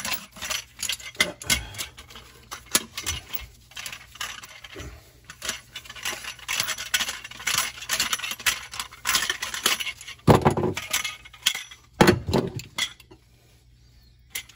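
Tubing cutter being turned around a brass tubular drain tailpiece, its cutting wheel scraping and clicking on the metal, with two heavier knocks about ten and twelve seconds in.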